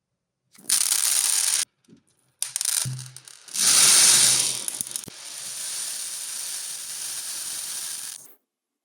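Small plastic beads pouring and rattling in a stream, in a few bursts with short breaks, loudest about four seconds in, then a steadier, softer pour that stops suddenly near the end.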